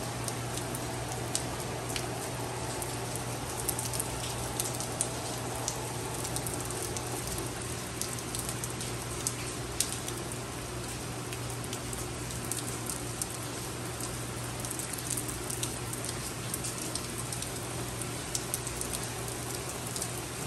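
Steady rain falling on a swimming pool and wet stone patio, a constant hiss dotted with the sharp ticks of single drops, over a low steady hum.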